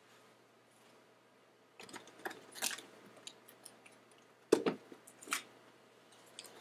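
Crinkling of a small lens-cleaning wipe packet being handled and opened: a run of light crackles about two seconds in, then two sharper clicks near the middle.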